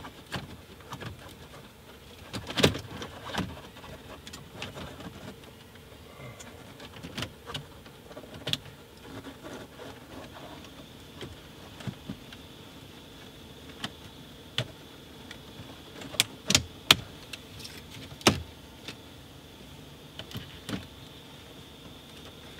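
Hard plastic dash trim of a Dodge Dart clicking and knocking as the bezel around the new head unit is pressed into place by hand. Irregular sharp clicks, the loudest about three seconds in and a quick cluster of them around sixteen to eighteen seconds in.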